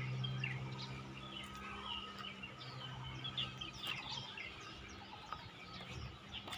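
Small birds chirping and calling repeatedly, with a steady low hum that fades out about four seconds in.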